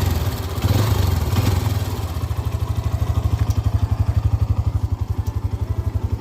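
Hero Xtreme 125R's single-cylinder four-stroke engine is revved briefly, then settles to an idle with an even, rapid beat of about a dozen pulses a second. The owner complains that this engine makes too much noise, with a 'kit kit' ticking at normal rpm.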